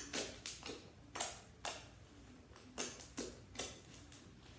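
Fluffy slime pressed and kneaded by hand, giving irregular sharp pops and clicks, about two a second, as trapped air bursts out of it.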